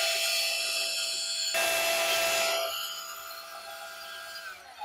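DeWalt cordless portable band saw running with its blade pressed on hard cast iron, a steady motor whine over a rasping hiss, making little headway: the metal appears hardened, probably by welding. It gets quieter about three seconds in, and the motor winds down just before the end.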